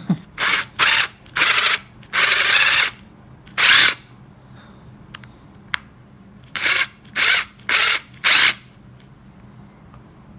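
Milwaukee impact driver, opened up, run in short trigger bursts: about six quick whirring spurts with one longer run, a pause with two small clicks, then four more spurts. Its motor is spinning with a wobble.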